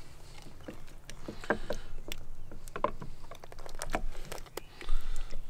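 Scattered knocks and clicks, with some wet handling noise, from a raw giant Pacific octopus being handled and moved about for cleaning and cutting.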